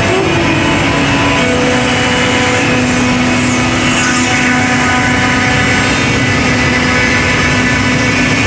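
ZY-S1615 CNC router's spindle and router bit cutting chair legs: a loud, steady whine over a rushing noise.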